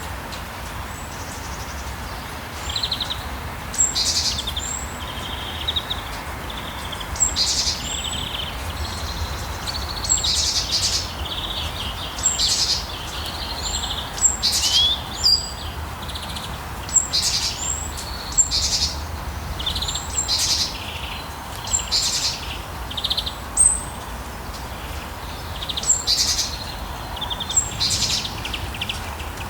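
Birds chirping in short, high calls that recur every second or two, over a steady hiss of rain and a low, constant rumble.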